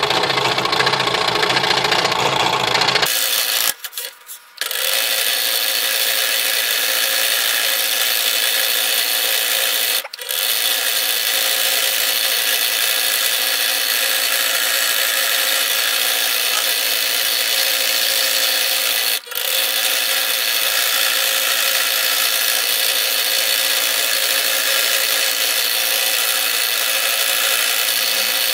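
Scroll saw running steadily as it cuts wood. The sound changes about three seconds in, drops out for about a second, then runs on with two brief dips later.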